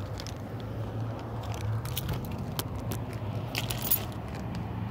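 Lincoln Town Car's 4.6-litre V8 idling steadily through straight pipes with no mufflers, a low even hum. Footsteps crunch on gravel now and then.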